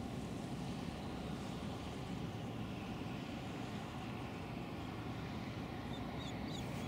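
Steady low rumble of distant road traffic, with a few faint high chirps near the end.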